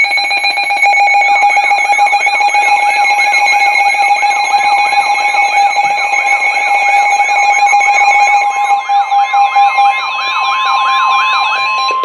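Several weather alert radios sounding their alarms at once for a new flash flood warning: steady tones layered with fast warbling, siren-like tones, with a single steady tone standing out near the end.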